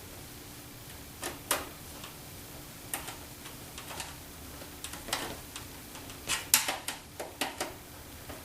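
Irregular light clicks and metallic taps from hands and a tool working on parts of a steel computer case. The clicks come singly at first, then bunch together in a quicker run about six to seven and a half seconds in.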